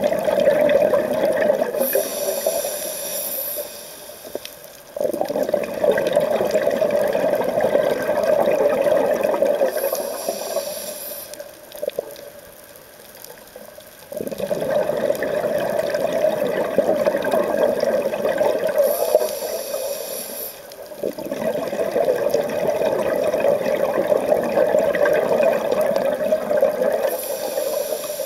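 A scuba diver breathing through a regulator underwater. A short hissing inhale comes about every eight seconds, and long stretches of bubbling exhale rush in between.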